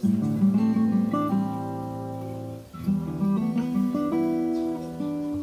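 Background music: acoustic guitar playing a run of plucked notes.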